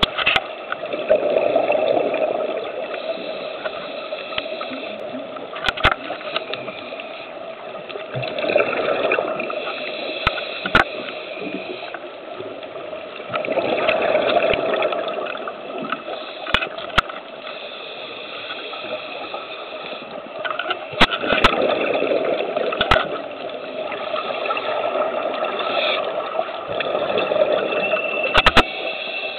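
Scuba diver breathing underwater through a regulator: bubbly, gurgling exhalations swelling up every five to seven seconds over a steady hiss, with scattered sharp clicks.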